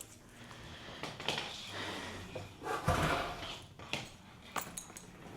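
Household handling noises: rustling and light knocks, with a heavier thump about three seconds in and a few sharp clicks after it, like a drawer or door being worked.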